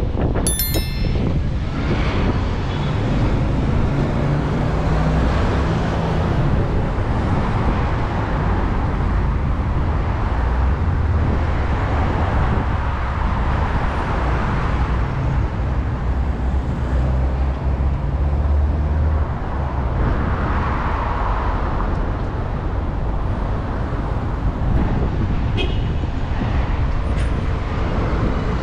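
Road traffic on a city street: a steady rumble of engines and tyres, with vehicles swelling past and fading now and then.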